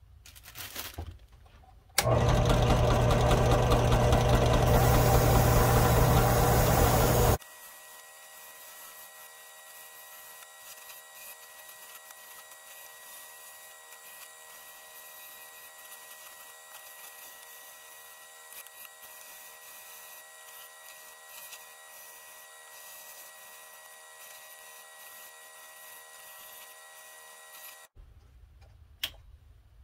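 Bench drill press motor spinning a wire cup brush, running loud and steady with a low hum for about five seconds, then cutting off sharply. A much fainter steady whine with a high tone follows until near the end.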